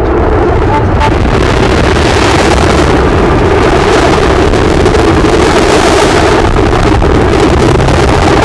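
Contemporary chamber quartet of violin, saxophone, accordion and percussion holding a loud, steady wall of noise-like sound with no clear notes.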